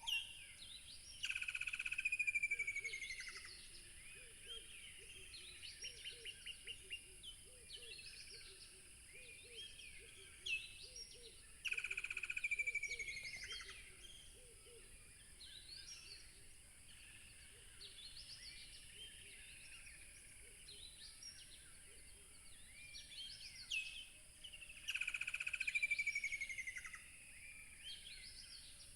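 Several songbirds singing. The loudest, a fast run of notes sliding down in pitch over about two seconds, comes three times, roughly every twelve seconds, with softer chirps from other birds between and a steady high hiss behind.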